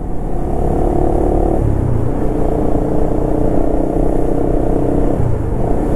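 Honda Winner 150 motorcycle's single-cylinder engine running steadily under way, over a constant low road and wind rumble. Its pitch drops about one and a half seconds in and rises again about five seconds in.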